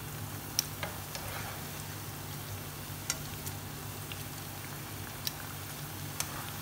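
Jalebi batter coils deep-frying in hot oil and ghee: a steady, gentle sizzle. A few sharp clicks of metal tongs against the pan and the jalebis come through as they are flipped.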